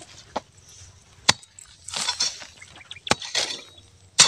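A metal hoe chopping into dry, clumpy soil while digging out a burrow: four sharp strikes, with the scraping and crumbling of loose earth between them.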